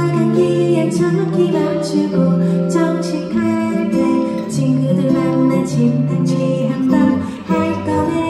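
A pop song performed live: a woman singing over strummed acoustic guitar.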